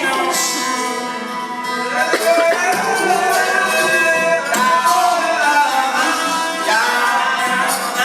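Live performance of a song: sung vocals over instrumental accompaniment, the voice gliding between held notes.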